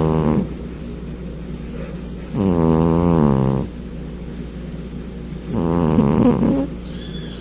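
A sleeping cat snoring like a person. Each snore is a droning breath about a second long that falls slightly in pitch. The tail of one snore is followed by two more, roughly three seconds apart.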